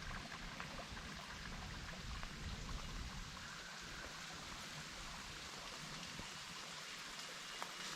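Steady rain with scattered individual drops ticking.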